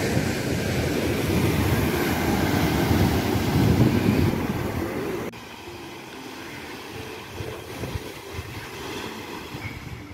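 Loud, steady rumble of wind on the microphone over waves washing onto a rocky shore. It cuts off suddenly about five seconds in, leaving quieter surf.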